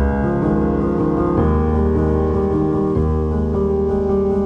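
Calm instrumental background music, sustained chords that change about every second and a half.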